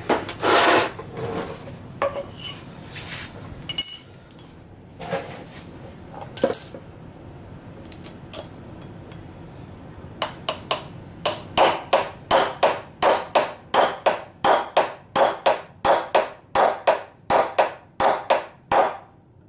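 Hammer striking a bearing race driver to drive the bearing race into a 1962 Ford Falcon's wheel hub: a few scattered ringing metal blows, then from about ten seconds in a steady series of blows, roughly two to three a second.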